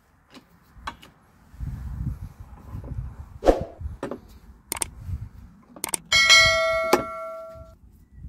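Metal tools and parts being handled: scattered clicks and knocks, then a little after six seconds a metal piece is struck or dropped and rings out like a bell for about a second and a half.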